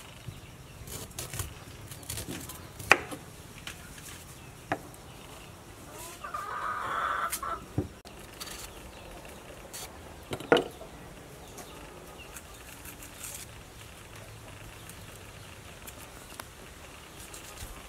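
Chickens clucking, with one longer, louder chicken call about six seconds in. Scattered sharp snaps and clicks come from green bananas being broken off the bunch and peeled by hand.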